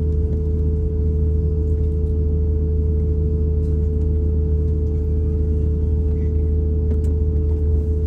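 Cabin noise inside an Airbus A220-300 taxiing with its engines at idle: a steady low rumble with a steady hum.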